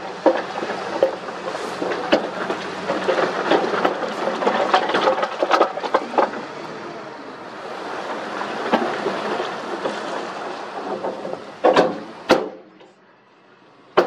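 Rock and earth fill sliding and clattering out of a dump truck's raised tipper bed: a dense run of knocks and rattles over steady noise. Two loud sharp bangs come near the end, then the sound drops away much quieter.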